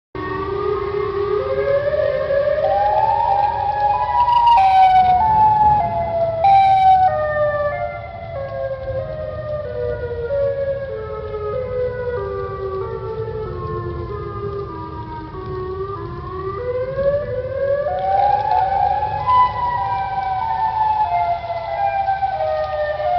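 Electronic siren-style emergency alert tone whose pitch climbs in small steps for about four seconds, falls in steps for about ten seconds, then climbs again, over a low rumbling hiss. Two brief noise bursts cut in about five and seven seconds in.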